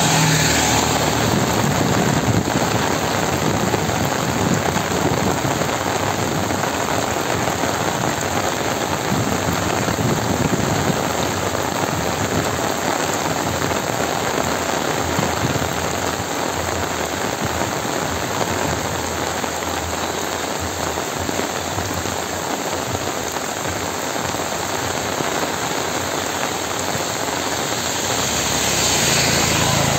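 Heavy rain falling steadily, a dense even hiss that eases slightly in the middle and builds again near the end.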